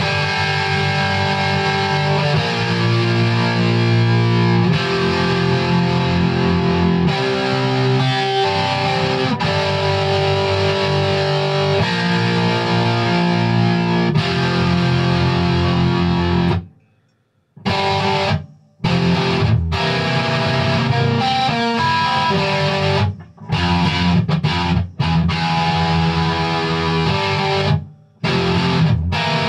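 Ibanez JEM 70V electric guitar playing distorted lead lines with held notes. About 17 seconds in, the sound cuts out for about a second, and then goes on in stop-start phrases with short sudden gaps.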